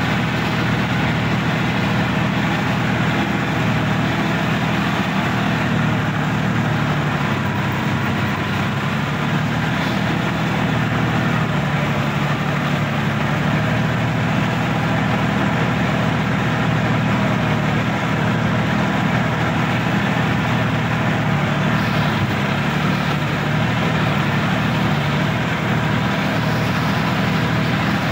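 Sonalika DI-50 RX tractor's diesel engine running steadily at an even speed, heard from the driver's seat as it drives through a flooded paddy field.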